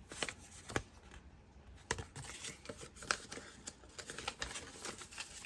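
Packaging being handled: rustling with scattered sharp clicks and taps, busier from about two seconds in.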